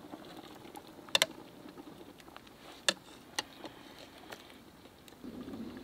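Sharp metal clinks from a pot lid and utensils against a steaming stockpot as stew is scooped out: a double clink about a second in, another near three seconds, and lighter ticks between. A steadier noise of the boiling pot rises near the end.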